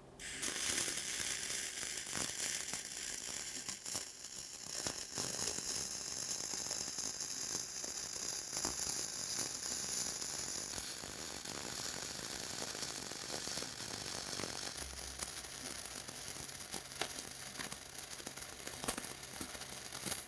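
Flux-core arc welding with 0.045 wire, laying a fill pass on a 5-inch pipe: a steady crackling sizzle dotted with sharp pops as spatter flies. It starts abruptly as the arc is struck and cuts off when the arc is broken.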